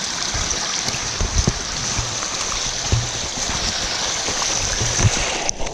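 Muddy rainwater running over rocks down a trail, a steady rush of water, with occasional low thumps. The rush cuts off abruptly just before the end.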